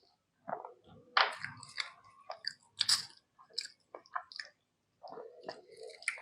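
Close-miked wet chewing and biting of a mouthful of rice and mutton curry, with irregular smacking clicks. There is a brief pause a little after the middle.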